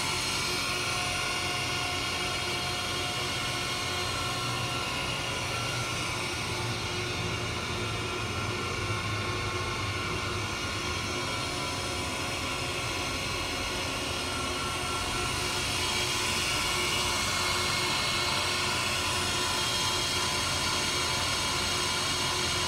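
Reid 2-C surface grinder running, its grinding wheel spinning free on the spindle: a steady whine with several fixed tones over a motor hum, a little louder near the end.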